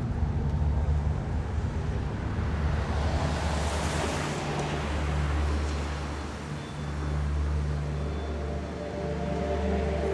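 Steady low rumble of city traffic, with a louder swell of noise rising and fading about four seconds in.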